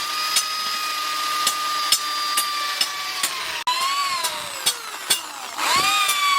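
Electric power tool motor whining steadily, its pitch sinking as it is loaded and climbing back as the load comes off, with sharp ticks about twice a second.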